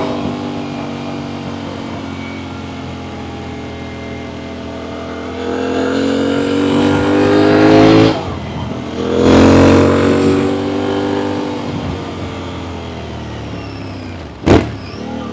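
Aprilia Tuareg 660's parallel-twin engine through an Akrapovic full exhaust, pulling hard twice with a gear change about eight seconds in, then easing off. A sharp loud click comes near the end.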